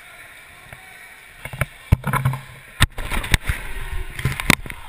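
Handling noise on a handheld action camera's microphone: rubbing and scraping as the camera is turned around, with four sharp knocks.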